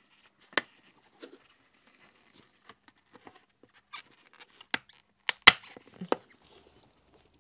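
Plastic visor being fitted onto the side pivot of an Icon Variant Pro motorcycle helmet: scattered light plastic clicks and taps, then a few sharper snaps about five to six seconds in, the loudest about five and a half seconds in.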